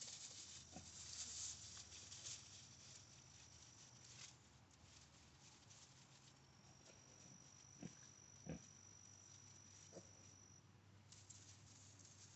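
Faint sounds of piglets rooting and scampering in straw, with a few short soft grunts, two of them a little louder about eight seconds in.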